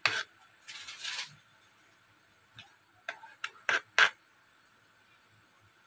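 Kitchen knife trimming the crusts off a slice of white bread on a plastic cutting board: a sharp knock of the blade on the board, a short scraping cut through the crust, then a quick run of about five sharp taps around the middle.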